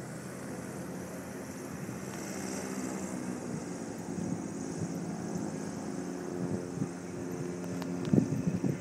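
Piston engine of a propeller airplane running steadily at low power: an even droning hum that grows slightly louder. Wind buffets the microphone in the last second.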